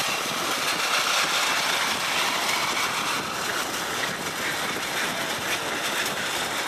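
Steady rushing, rattling noise of a shopping cart speeding downhill on pavement.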